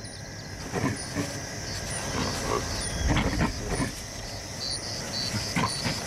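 Savanna ambience: a steady high chirring of insects with regular repeated chirps, over which savanna baboons give a few short low grunts, the loudest about three seconds in.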